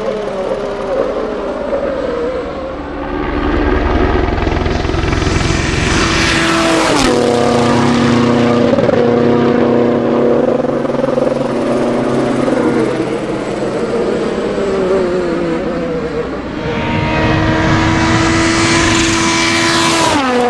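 Rally car's turbocharged 1.6-litre four-cylinder engine at full throttle, its pitch held flat on the rev limiter for several seconds at a time. The pitch drops sharply at each upshift, about seven seconds in and again just before the end. The sound swells into a loud rush as each car passes close.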